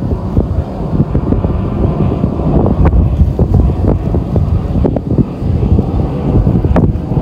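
Wind buffeting the microphone: a loud, uneven low rumble with scattered sharp pops.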